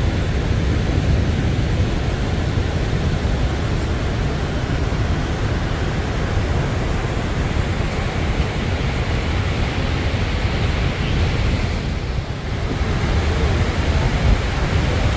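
Steady rushing of Niagara Falls' heavy falling water, an even noise with no break except a brief dip in level about twelve seconds in.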